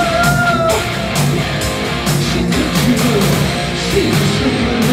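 Hard rock band playing live: distorted electric guitars over bass and a steady drum beat.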